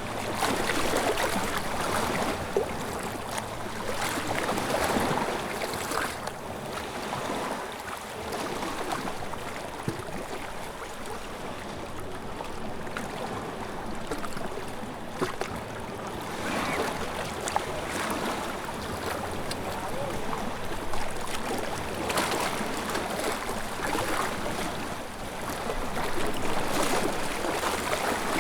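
Sea waves breaking and washing against shoreline rocks: a continuous rush of water that swells with each wave every few seconds. Wind rumbles low underneath.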